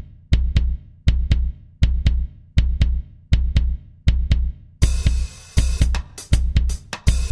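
Soundtrack music: a beat of paired bass-drum hits repeating about every three quarters of a second, like a heartbeat, joined about five seconds in by a fuller layer of sustained instruments.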